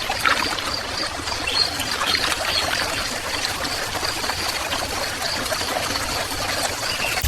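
Crickets frying in garlic butter on a hot grill: steady sizzling with many fine crackles.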